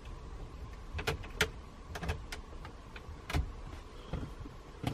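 Plastic cards being pushed into the gaps around a car dashboard's air vent trim to force its retaining tabs: scattered light clicks and scrapes of plastic on plastic, the loudest about three and a half seconds in.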